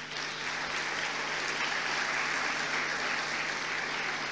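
Audience applauding: steady clapping that builds up in the first moment and then holds.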